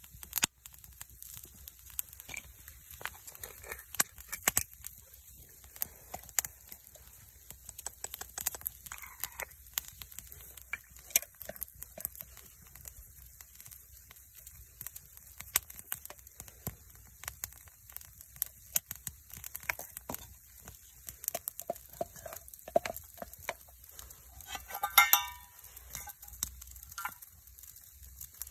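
Wood fire crackling in a small titanium box stove, with irregular sharp pops and snaps, and light clinks of a spoon against a metal mug as sugar is stirred in. A louder ringing sound comes near the end.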